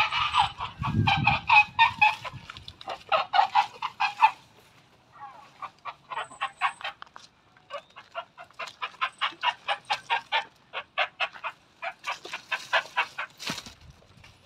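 Chickens clucking and cackling in quick runs of short, repeated calls, several runs one after another, with a brief low rumble about a second in.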